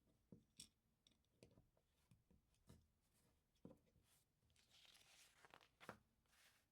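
LEGO pieces being handled and pressed together while building the flower's stem: scattered soft, sharp clicks and taps, with a short rustle of pieces and hands about five seconds in.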